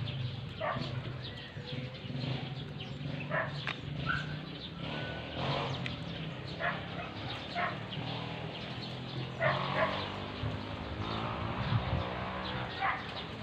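Short animal calls, dog-like, one every second or two, with a brief bird chirp about four seconds in, over a steady low hum.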